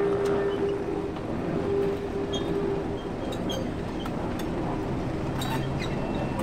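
Commonwealth Railways NSU-class diesel-electric locomotive NSU 52 running slowly past, its Sulzer diesel engine rumbling steadily. A steady whine over the engine drops away about three seconds in, and a lower hum comes in near the end, with a few faint ticks and squeaks from the wheels on the rails.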